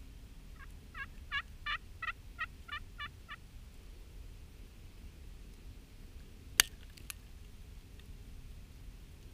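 A run of about nine turkey yelps, evenly spaced at roughly three a second, swelling and then fading. A few seconds later comes a single sharp click, followed by a fainter one half a second after.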